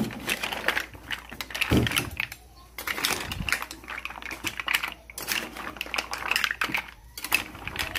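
Rapid, irregular clicking and clattering, with a dull knock about two seconds in.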